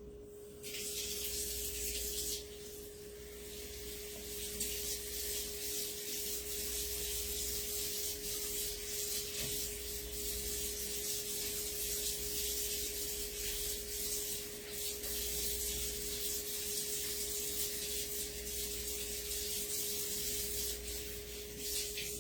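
Running tap water, with a silkscreen stencil transfer being scrubbed with a board eraser and rinsed under the stream. The water comes on under a second in and shuts off at the very end.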